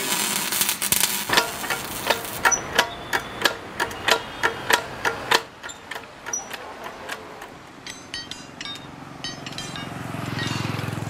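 Hammer blows on metal, about three a second, each with a brief ring, stopping about five seconds in; then fainter, quicker metallic clicks and taps.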